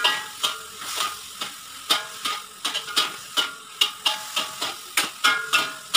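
Metal spatula and spoon knocking and scraping against a steel wok while stir-frying cabbage, about three knocks a second, some with a brief metallic ring, over the sizzle of the frying.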